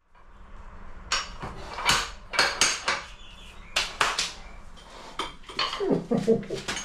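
Metal tools being handled and set down: irregular sharp metallic clinks and knocks, with no power tool running.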